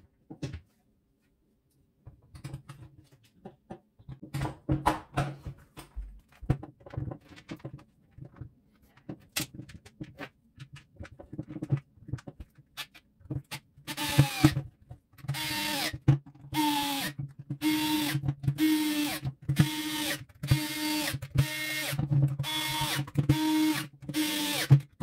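Scattered clicks and knocks of parts being handled and fitted, then, about halfway through, a small electric screwdriver run in about a dozen short, evenly spaced bursts, as screws are driven back in to reassemble a jigsaw.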